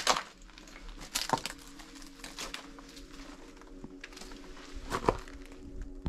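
Footsteps crunching over debris on a floor, with a few sharper cracks and scrapes at irregular intervals, the loudest at the very start and about five seconds in.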